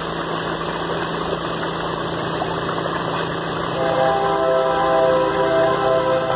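Small dredge pump engine running steadily, with water rushing and churning through a homemade mini crash box sluice. About four seconds in, a distant train horn starts a long, steady chord over it.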